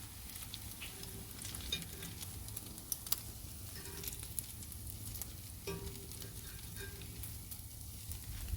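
Hot peppers frying in bacon grease in a cast iron pan: a steady sizzle with frequent small pops and crackles.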